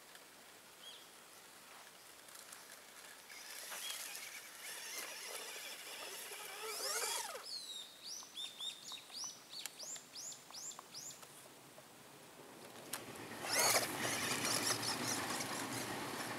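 Tamiya Grasshopper RC buggy's electric motor whining up and down in pitch as it drives over dirt and grass. A bird then calls a quick run of about ten short chirps, and near the end a train passing close by sets in with a rumbling rush, the loudest sound here.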